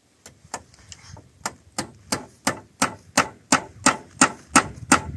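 Hammer striking nails into wooden roof boards, steady blows about three a second that grow louder.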